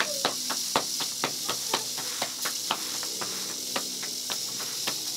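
Flatbread dough slapped from hand to hand as it is stretched, in an even rhythm of about four soft slaps a second, over a steady hiss.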